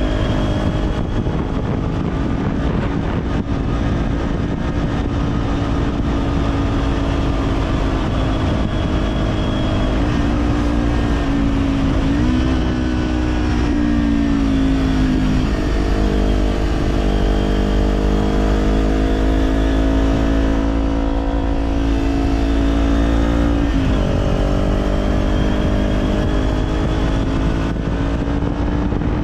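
Kawasaki Z400's parallel-twin engine running through an Orion Katya slip-on exhaust while riding. The pitch climbs and falls with the throttle, with a sudden dip about two-thirds of the way in before it climbs again.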